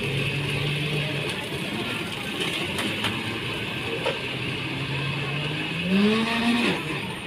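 A motor hum, steady at first, then rising in pitch about six seconds in, over busy background noise.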